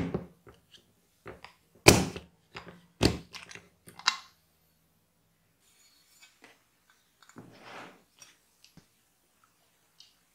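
Clip-lock lid of a plastic food storage container being unlatched, four sharp snaps about a second apart, followed by faint light taps and a soft scrape.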